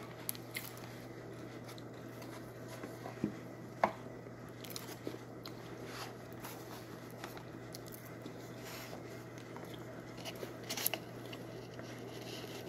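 Mouth chewing cornstarch, with soft crunching and crackling and a few sharper crunches scattered through. A steady low hum runs underneath.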